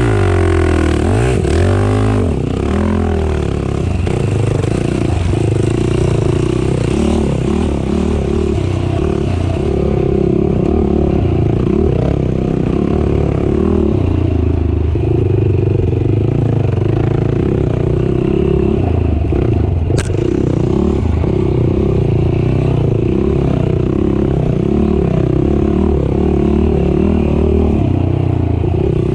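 Race ATV engine running hard under changing throttle, revving up and down sharply at first and then holding high with constant small changes, with the quad's rattle and clatter over rough ground. A single sharp click about twenty seconds in.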